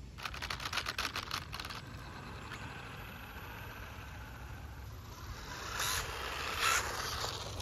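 Electric RC car motor driving a 3D-printed plastic gear-reduction train as the car pulls away, with rapid clicking in the first couple of seconds, then fainter, and a few louder rasps near the end. The gears sit on unkeyed shafts held only with CA glue, a gearbox that dies under throttle.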